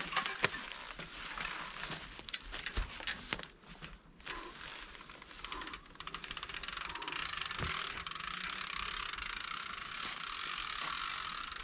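Mountain bike rolling over a trail of dry fallen leaves: the tyres crackle and rustle through the leaf litter. Irregular crackles in the first half give way after about six seconds to a steadier rustle with fast, even ticking, typical of a rear freehub ratchet while coasting.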